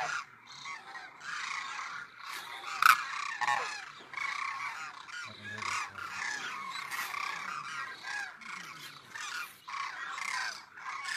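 A flock of demoiselle cranes calling in flight overhead, many calls overlapping in a continuous chorus. About three seconds in, one sudden, sharp, loud sound stands out above the calls.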